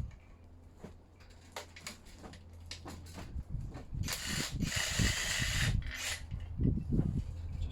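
Hand tools on metal: a socket ratchet clicking and clattering while gearbox bell-housing bolts are undone, with a dense, fast run of ratcheting about four seconds in lasting nearly two seconds.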